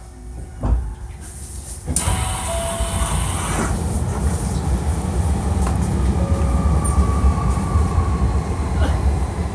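Hankyu 1300 series electric train running on the line, heard from inside the car: a few sharp rail-joint clicks over a low rumble, then about two seconds in the noise jumps suddenly to a loud, steady rumble and rush of wheels on rails.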